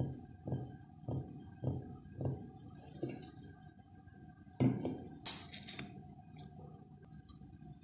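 Fingertips tapping on a wooden tabletop, a soft thud roughly every half second for the first three seconds. Then a few sharp metallic clicks as the pull tab of an aluminium soda can is handled.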